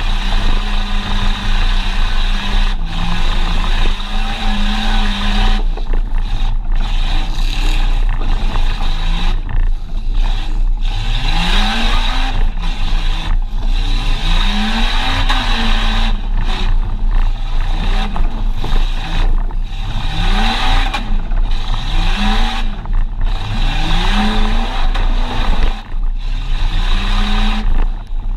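Jeep Cherokee XJ's 4.0 inline-six engine under load, holding steady for a few seconds and then revving up and back down again and again. Heavy rattling and clatter run through it throughout.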